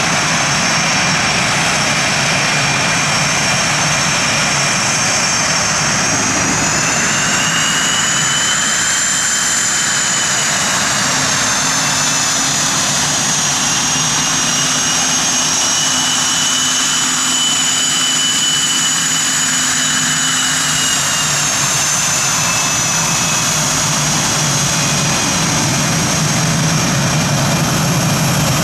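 Aircraft turbine engines running steadily and loudly. They have a high whine that rises and falls gently in pitch a few times.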